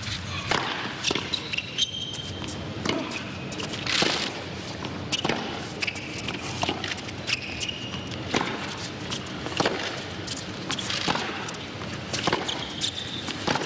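A tennis rally on a hard court: tennis balls struck by racquets back and forth, about one sharp hit a second, with short high squeaks of tennis shoes on the court between the hits.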